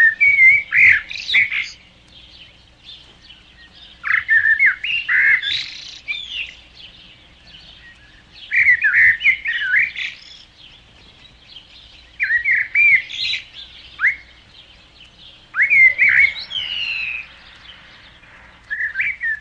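Songbirds whistling: phrases of quick rising and falling whistled notes, each about two seconds long, coming roughly every four seconds.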